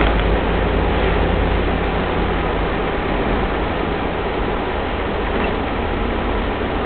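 1983 Mitsubishi Pajero turbo-diesel engine running at cruising speed, heard from inside the cab together with road and wind noise. The low engine drone eases a little in the middle and picks up again near the end.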